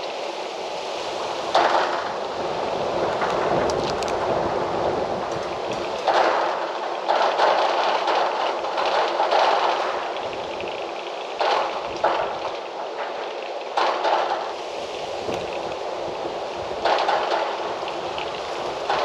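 Gusts of wind rushing through trees and foliage, swelling suddenly and fading back several times.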